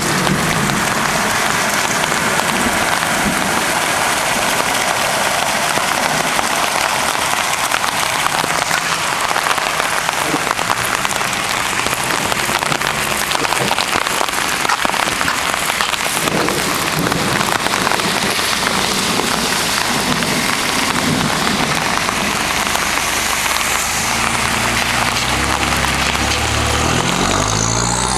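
Heavy rain pouring steadily, pattering on an umbrella overhead. Near the end a vehicle's engine comes in low and rises in pitch as it approaches.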